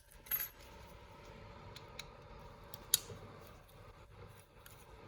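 Light clicks and taps of small carburetor parts being handled, with a short scrape about a third of a second in and one sharp click about three seconds in.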